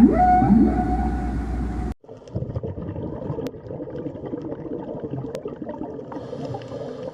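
A whale call rises in pitch and holds a steady tone, then cuts off abruptly about two seconds in. Gurgling, watery underwater noise with a few faint clicks follows.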